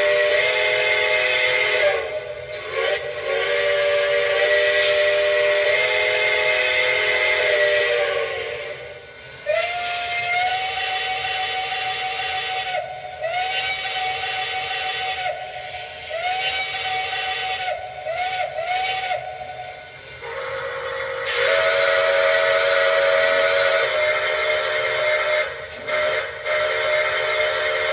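A Lionel Legacy Camelback 4-6-0 model steam locomotive's onboard sound system playing recorded steam whistles, stepping through its different whistle tones. It opens with a multi-chime whistle in two long blasts, then a single-note whistle in a run of long and short blasts, then another chime whistle near the end.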